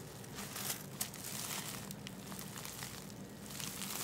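Clear plastic sheeting crinkling as a hand turns a transformer bushing insulator over on it, with a couple of sharp clicks about a second in.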